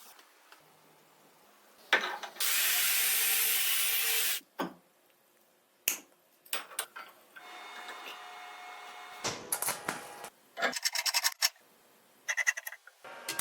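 Tool work on household materials: a loud scraping noise lasting about two seconds, followed by scattered clicks and knocks and short rattling bursts near the end.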